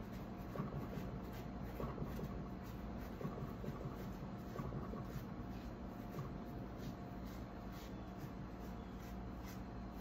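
Faint, irregular scratchy strokes of a small paintbrush on a carved wooden parrot, over a steady low hum.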